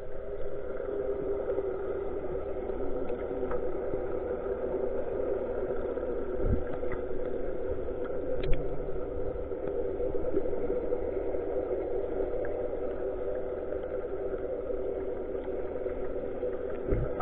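Fishing boat's engine running, heard underwater as a steady hum, with a couple of faint brief knocks partway through.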